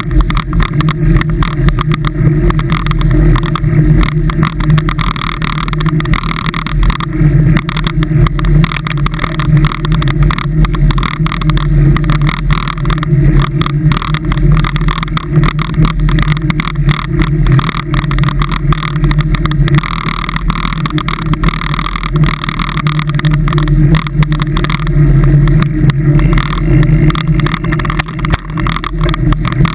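Loud, steady drone of a vehicle driving on a snow-packed winter road: engine, tyre and wind noise running continuously.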